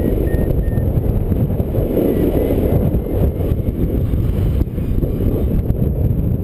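Steady rush of wind on the microphone of a paraglider in flight, a low even buffeting without any engine. A few faint, short high beeps from a flight variometer come through near the start.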